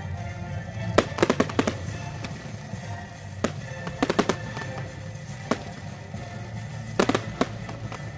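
Aerial fireworks going off: a quick run of sharp bangs about a second in, single bangs and another cluster around four seconds, and a pair near the end. Music plays underneath throughout.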